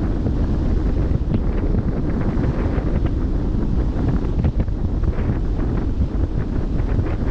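Wind buffeting the microphone on a ship's bow, a heavy steady low rumble, over the wash of sea water with small splashes.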